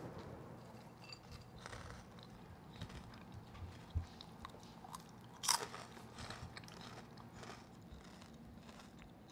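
Someone eating crunchy cheese puffs: faint, scattered crunches and chewing, with the loudest crunch about five and a half seconds in.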